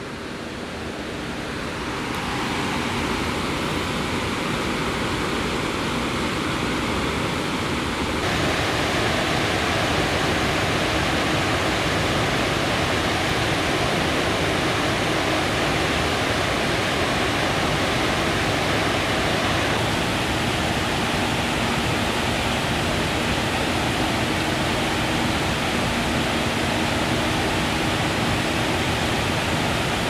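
Waterfall on the Passaic River, a steady rush of falling water. It swells up over the first couple of seconds and grows a little louder about eight seconds in.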